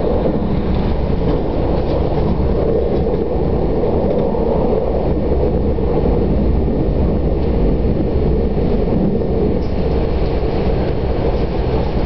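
A passenger train running along the rails, heard from inside the carriage: a steady low rumble of wheels and running gear.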